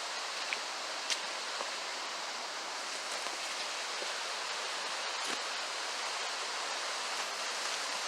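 Steady rush of a waterfall's falling water, with a few faint light clicks.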